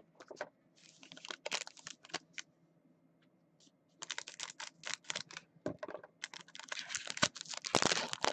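Foil trading-card pack wrapper being handled and snipped open with scissors: a run of small sharp crackles and clicks, a pause about two seconds in, then denser crinkling from about four seconds in.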